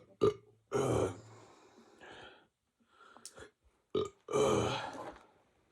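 A man burping several times, some short and abrupt, two drawn out.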